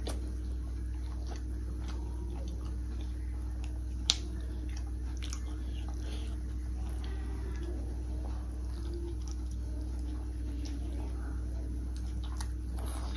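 Chewing and soft mouth clicks from children eating pork momos by hand, over a steady low hum, with one sharp click about four seconds in.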